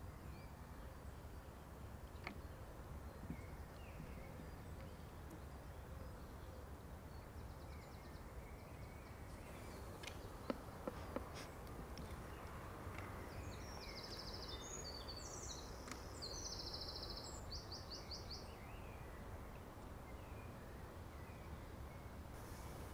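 Quiet outdoor ambience: a low, steady background rumble with faint birdsong, strongest a little past the middle, and a few soft taps.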